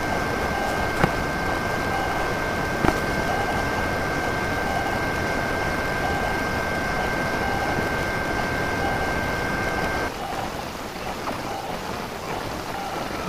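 3D printer running: a steady hiss with a high two-note whine that cuts off suddenly about ten seconds in, leaving a quieter hiss. Two sharp clicks come about one and three seconds in.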